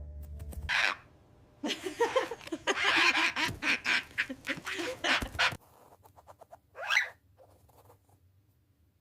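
Parrot squawking: a brief harsh call about a second in, a dense run of squawks and chatter from about two to five and a half seconds in, and one more short call about seven seconds in.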